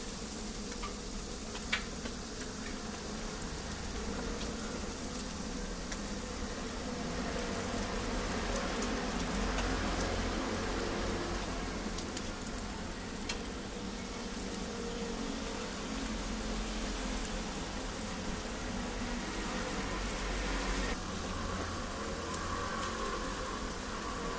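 Scallion egg batter sizzling steadily on a flat-top griddle over a low hum, with a metal spatula knocking on the griddle once or twice near the start.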